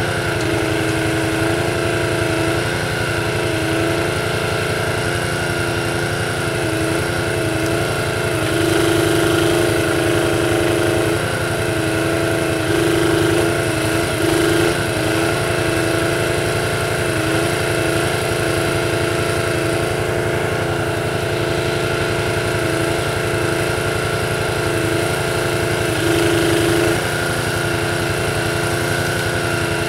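Small petrol engine on an ATV-mounted Jussi 400 hydraulic crane running steadily. Three times it grows louder for a second or two while the crane is worked.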